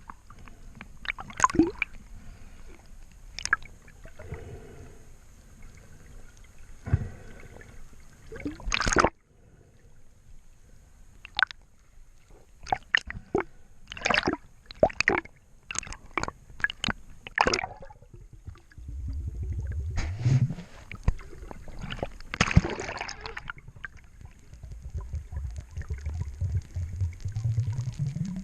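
Water gurgling and sloshing, with many scattered sharp clicks and knocks through the first two-thirds and low rushing swells near the end.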